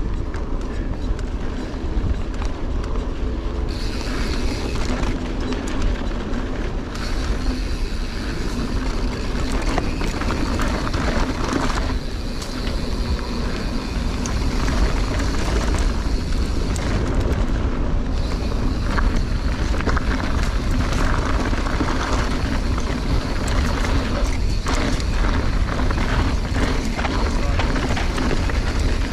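Mountain bike rolling fast down dry, rocky dirt singletrack: a steady rumble of wind on the microphone, with tyre crunch over gravel and frequent clicks and knocks from the bike rattling over bumps.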